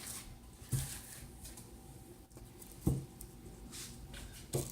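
Soft kitchen handling sounds while blueberries are measured out for batter: light scraping and rustling, with three short soft knocks spread through.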